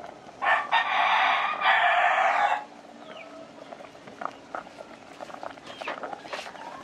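A rooster crowing once, loud, for about two seconds starting about half a second in.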